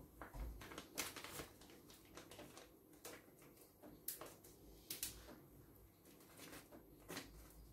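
Faint, scattered small clicks and taps, about half a dozen, from a metal teaspoon and a plastic powder pouch being handled.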